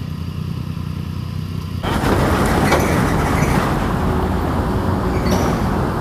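Motorcycle engine idling low and steady. About two seconds in, the sound cuts to a louder, steady rushing noise with no clear tone.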